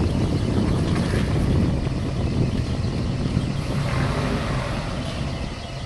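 Nissan Pathfinder 4WD engine working steadily under load as the vehicle crawls over uneven dirt.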